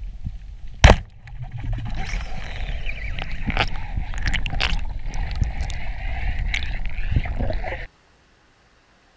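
Underwater shot of a band-powered wooden speargun: one sharp, loud crack about a second in. Several seconds of rushing, clattering underwater noise with sliding whines follow as the shooting line runs out after the struck wahoo, and the sound cuts off abruptly near the end.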